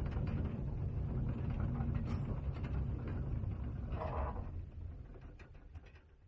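Mine trolley train rattling along its narrow-gauge rails: a low rumble with scattered clacking from the wheels, a brief squeal about four seconds in, then the sound dies away near the end.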